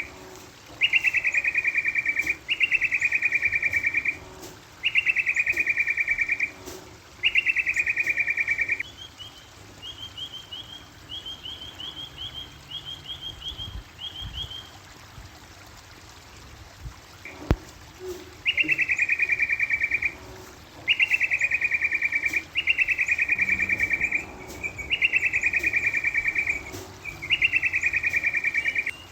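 A bird giving a loud, rattling call over and over, each call about a second and a half long and falling slightly in pitch, repeated about every two seconds. In the middle the calls stop and a quick series of short, higher chirps runs for several seconds, then the rattling calls resume. A single sharp click comes shortly before they resume.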